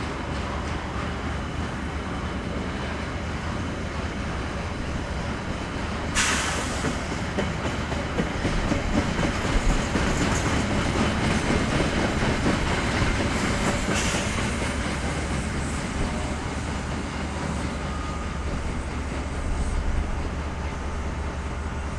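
Train hauled by KiwiRail EF-class electric locomotives running along the track, a continuous rumble with wheels clattering on the rails. A sudden louder hiss cuts in about six seconds in and again about fourteen seconds in, and the rumble is at its loudest in between.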